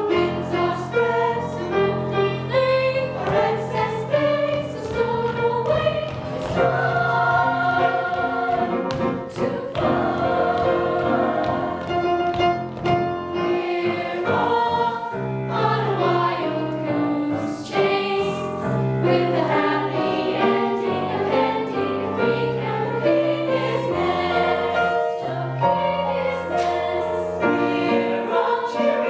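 A choir singing a show tune with instrumental accompaniment.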